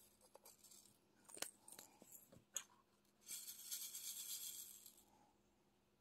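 Small clicks and taps of handling a drill container, then about two seconds of loose plastic diamond painting drills rattling together in a tray.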